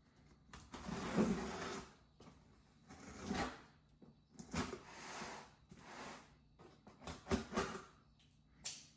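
A cardboard meal-kit delivery box being handled and opened: a series of scraping and rustling noises, the longest about a second in, then several shorter ones.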